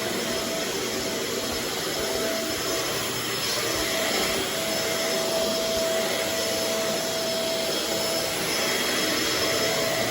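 Shark Navigator Swivel bagless upright vacuum running steadily, a continuous motor and airflow noise with a faint whine that comes and goes.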